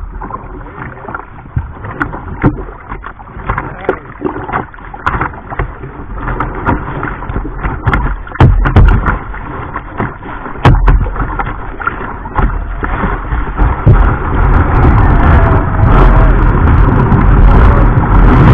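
Kayak paddle blades splashing into the sea in repeated strokes, water slapping the plastic hull close by, swelling in the last few seconds into a loud, steady rush of breaking surf around the kayak as it catches a wave.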